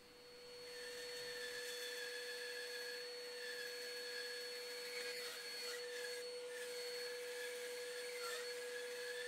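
Metabo BAS 261 Precision bandsaw with its induction motor running, a steady whine with a faint hiss above it, as its blade rip-cuts a wooden board fed along the fence. The sound swells in over the first second.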